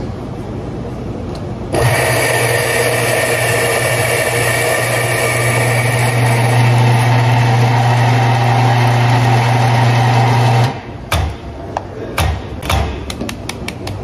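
Electric coffee grinder grinding coffee beans at setting four: the motor starts about two seconds in with a steady hum and grinding noise and cuts off suddenly about eleven seconds in. A quick run of light knocks follows near the end.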